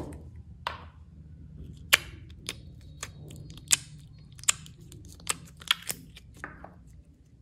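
Slime being worked by hand, giving about ten sharp pops and clicks at irregular intervals as trapped air bursts.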